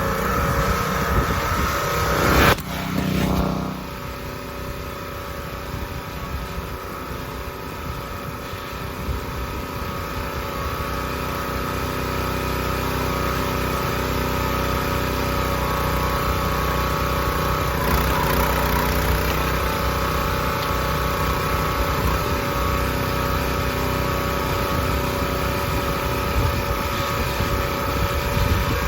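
Predator 212cc single-cylinder gas engine on a 20-ton hydraulic log splitter running steadily. A sharp knock comes about two and a half seconds in.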